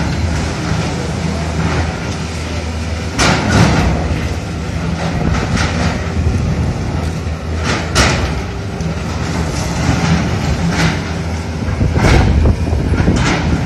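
Diesel engines of heavy demolition machinery running steadily, with sharp cracks and crashes of concrete and debris as excavators break down a quake-damaged building, loudest about three seconds in, at about eight seconds, and again near the end.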